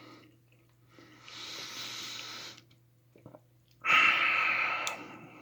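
A man breathing heavily, twice: a quieter, longer breath about a second in, then a louder breath near the end.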